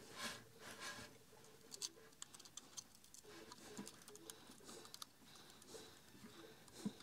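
Faint rustling and scattered small clicks as a rubber timing belt is handled and threaded through the laser-module carriage of an xTool D1 Pro laser engraver, with a slightly louder click near the end.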